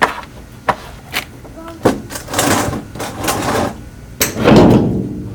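Handling noise from work under a pickup truck at its fuel tank: a few sharp clicks and knocks, then scraping and shuffling, the loudest a heavy scrape about four and a half seconds in.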